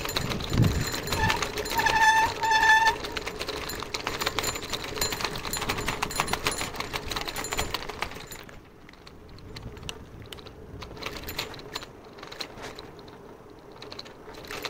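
A bicycle rattling fast over a cobblestone road, a dense stream of clicks and knocks, which turns much quieter and sparser as it rolls onto smooth asphalt about eight and a half seconds in. Two short beeps sound about two seconds in.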